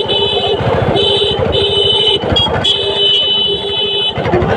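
Vehicle horn honking in a run of blasts: a long one, a few shorter ones with two quick toots in the middle, then another long blast that stops about four seconds in. Under it runs the steady rumble of road and wind noise from a two-wheeler riding through traffic.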